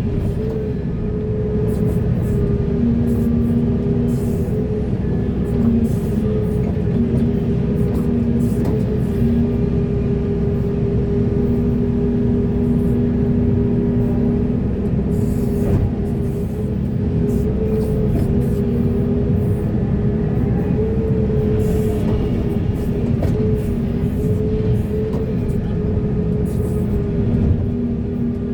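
Heavy diesel excavator running steadily under load, a deep engine rumble under a held hydraulic whine that wavers slightly in pitch.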